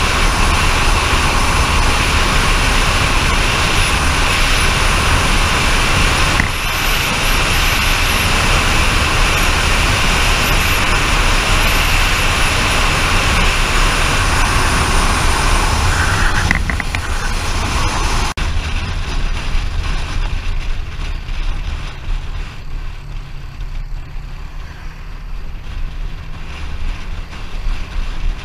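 Loud, steady road and wind noise from a moving vehicle. It drops abruptly about eighteen seconds in, leaving a lower rumble with a faint engine note rising in pitch near the end.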